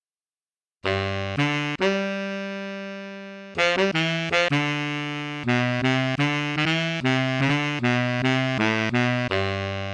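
Sampled brass instrument from an SF2 soundfont playing a phrase of notes. After a moment of silence it sounds a few short notes, holds one long note that slowly fades, then plays a run of quicker notes.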